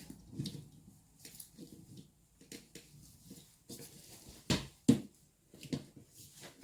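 Hand tools and wheel parts knocking and clinking irregularly while a motorcycle tyre is being changed, with two sharper knocks close together about four and a half seconds in.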